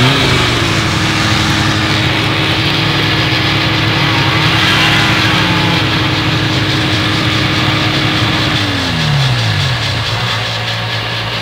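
Vintage two-stroke snowmobile engine running at a steady high speed, then its pitch falls as the engine slows about nine seconds in.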